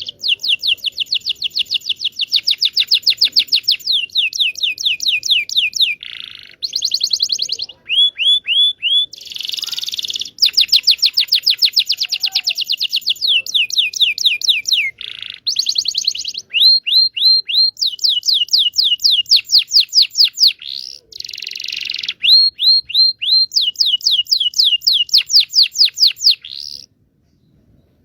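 Local Indonesian canary singing a long song of fast trills, rapid runs of repeated falling notes alternating with buzzy rolls and short pauses. The song stops shortly before the end.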